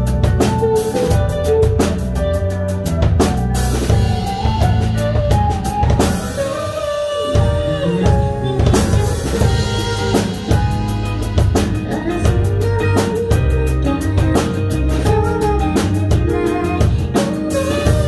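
Live pop song with a full drum kit keeping a steady beat under the band and a woman singing the melody. The drums drop out for a moment about six seconds in and come back some two seconds later.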